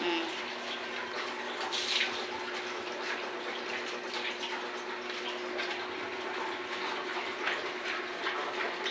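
Water running steadily, with a faint steady hum underneath and scattered small knocks.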